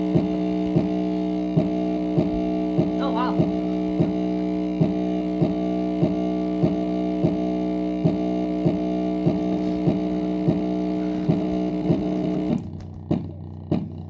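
Fake JBL Charge 4 Bluetooth speaker with a broken driver playing a bass test track: a steady droning tone with a beat about one and a half times a second. The drone stops near the end while the beats go on.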